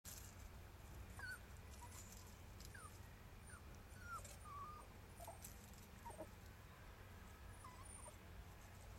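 Quiet outdoor ambience: a low steady rumble with about ten faint, short, high chirps or squeaks scattered through it, and a few faint soft clicks.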